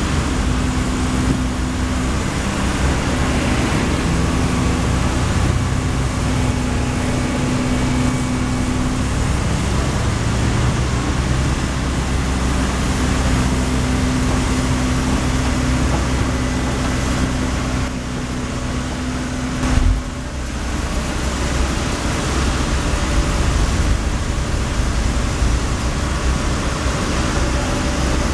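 Cat 320D2 GC excavator's diesel engine running steadily under work, its pitch shifting a little at times, with road traffic passing.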